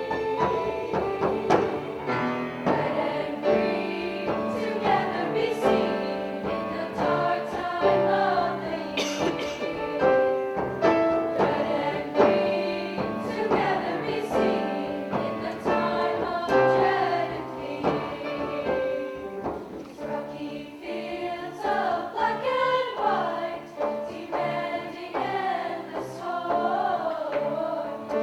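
Choir singing in several voice parts in harmony.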